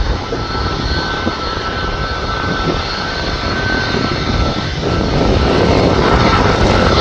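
Boeing 737 MAX 8's CFM LEAP-1B turbofan engines running, a steady jet rush with high whining fan tones. The sound grows louder in the last two seconds.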